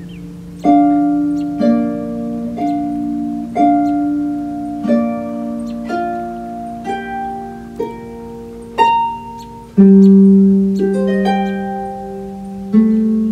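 Pedal harp music: single plucked notes about a second apart, each ringing and fading, over held lower notes.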